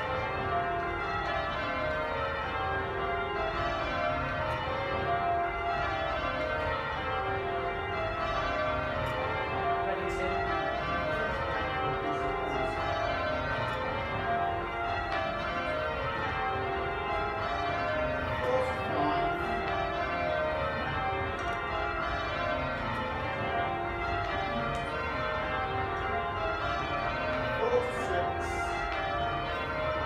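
The Taylor-cast bells of Buckfast Abbey being rung full-circle in English change ringing. The bells strike one after another in sequences that fall from the highest to the lowest bell, row after row, in a continuous rhythmic peal.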